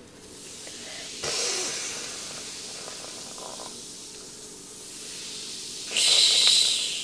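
Baking soda and vinegar fizzing as they react inside a small model volcano. The hiss swells suddenly about a second in and again, louder, near the end.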